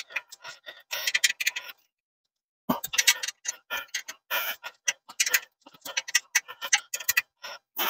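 Irregular light metal clicks and ticks from the steel bed-frame hardware as a bolt and nut are fitted by hand at the rail-to-headboard joint, with a pause of about a second near two seconds in.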